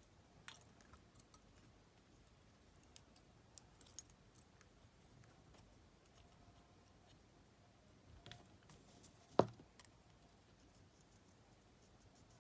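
Faint scattered clicks and light taps from small tools and parts being handled during a jumper-wire repair, with one sharper click about nine seconds in.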